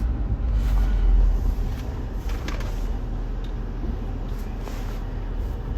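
Truck engine idling with a steady low rumble, a few faint ticks over it.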